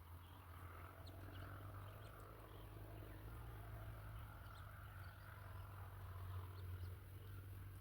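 Faint outdoor ambience: a steady low hum under a soft noisy hiss, with scattered tiny high chirps or ticks.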